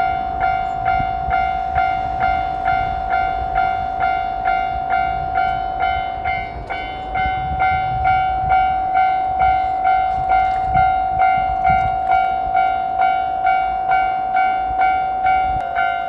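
Japanese railroad crossing warning bell ringing over and over, a little under two strikes a second, each strike a ringing tone with overtones, over a low rumble.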